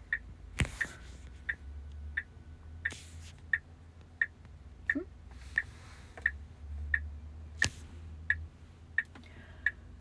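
Tesla Model S turn-signal indicator ticking steadily, about three ticks every two seconds, from the right blinker held on. Twice, a louder sharp click cuts across the ticking.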